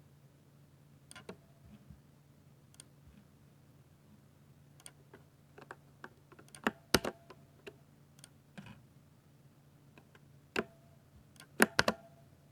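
Keystrokes on a 60% Ducky mechanical keyboard with silver switches: sparse, irregular key presses, with a few louder clusters of strokes about seven seconds in and near the end.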